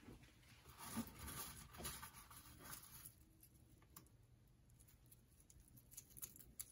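Near silence, with a few faint soft rustles and light taps as crumbled bacon bits are picked off a paper towel and sprinkled by hand onto lettuce.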